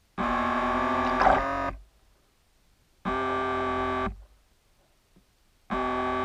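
A ZANLURE remote-control bait boat's electric propeller drive runs in three short bursts, heard through an underwater camera mounted beneath the hull. Each burst is a steady whine of several tones lasting about a second, starting and stopping abruptly.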